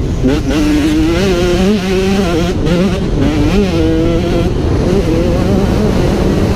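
KTM 125cc two-stroke motocross engine revving hard under load, its pitch repeatedly climbing and dropping back as the throttle and gears are worked, then holding steadier for the last couple of seconds.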